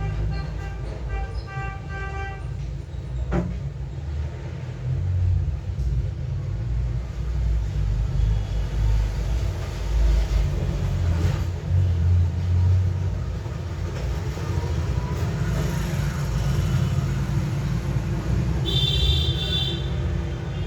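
Toy car's electronic sound effects playing: a low engine-like rumble, with a short high horn toot near the end.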